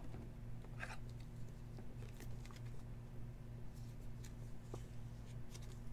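A trading card being slid into a rigid plastic top loader by hand: faint scattered scrapes and light plastic ticks over a steady low hum.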